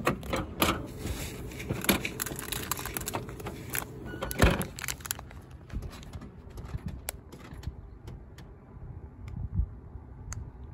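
Clicks, knocks and rustling of hands working a vending machine's glass dispensing door and handling a plastic-bagged packet of cookies, with one louder knock about four seconds in. After about five seconds only a few faint clicks remain.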